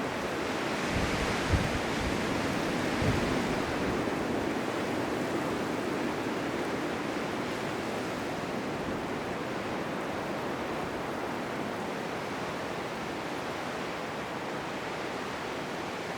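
Blizzard wind blowing as a steady rushing noise, easing slightly over the seconds, with two brief low buffets of wind in the first few seconds.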